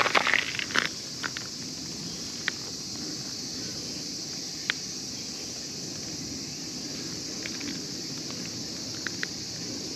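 Close handling noise in the first second, rustling and a few sharp knocks, as the camera is moved down toward the cat, then a steady high-pitched outdoor hiss with a few isolated faint clicks.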